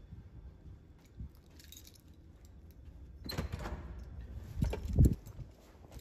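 Footsteps and camera handling noise while walking a carpeted hallway, with a jingling clatter a little after three seconds in and a heavy thump about five seconds in.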